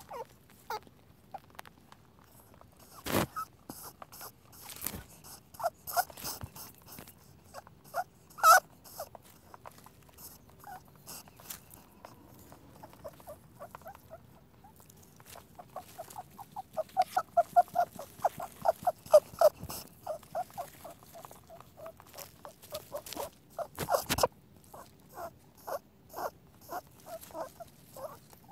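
Rabbit noises: a rapid, even run of short squeaky pulses, about five or six a second, loudest about halfway through, with a few sharp louder clicks scattered among them.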